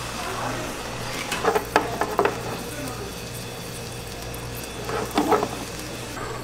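Spatulas scraping and knocking across an oily electric griddle pan in two short runs, about a second and a half in and again about five seconds in, over a faint sizzle of hot oil.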